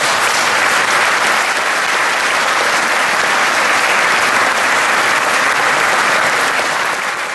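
Audience applauding, a dense and steady clapping that eases off slightly near the end.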